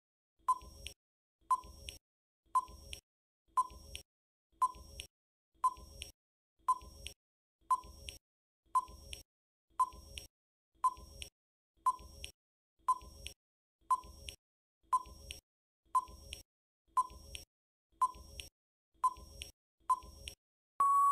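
Countdown-timer sound effect: a short beep about once a second, twenty in all, each fading quickly, then a longer steady beep near the end as the time runs out.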